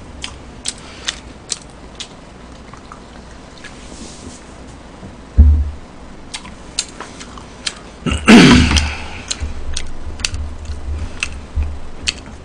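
A person chewing fried chicken close to the microphone, with scattered small mouth clicks. There is a low thump about five seconds in, and a loud breathy groan falling in pitch a little past eight seconds.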